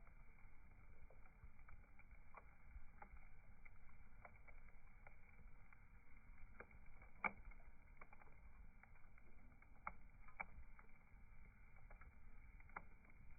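Faint crackling of a wood bonfire: scattered sharp pops over a low rumble, the loudest pop about seven seconds in.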